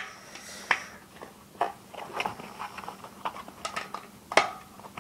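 Scattered light clicks, knocks and rubbing as a BMX inner tube and tyre are handled and fitted onto the wheel rim, with the sharpest knock about four and a half seconds in.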